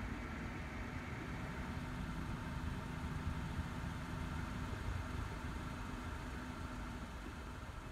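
A vehicle engine idling: a steady low rumble with a faint constant hum.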